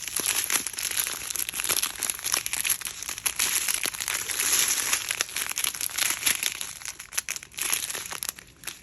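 Small plastic bags of diamond-painting drills crinkling and rustling as they are handled and sorted through. The crinkling runs on steadily and dies down near the end.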